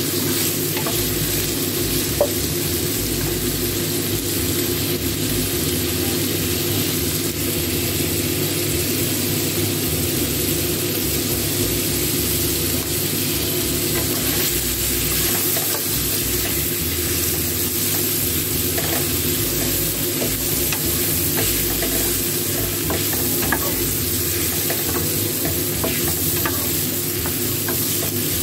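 Cubed pork ribs sizzling in hot oil in a frying pan with garlic and onion, stirred and turned with a wooden spatula. The sizzle is steady, with scattered light clicks of the spatula against the pan.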